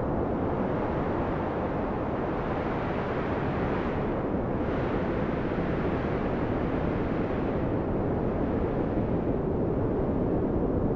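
Storm wind blowing steadily: a deep, unbroken rushing noise.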